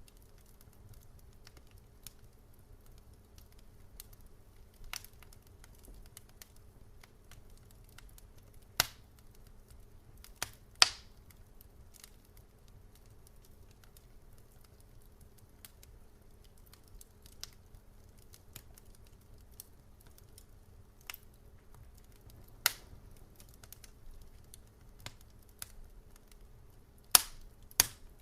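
Wood fire in a fireplace crackling: irregular sharp pops and snaps, a few much louder ones about nine and eleven seconds in and near the end, over a faint low steady background.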